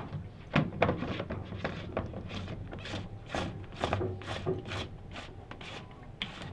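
Plastic sediment filter housing being screwed by hand onto the head of a reverse osmosis unit: the threads and O-ring rub and scrape in a run of short strokes, about two or three a second.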